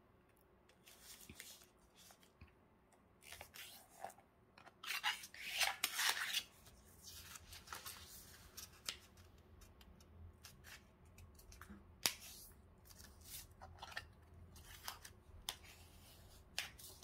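A sheet of paper being folded by hand: irregular rustling and sliding, with fingers rubbing the crease flat, busiest about five to six seconds in. There is a single sharp click about twelve seconds in.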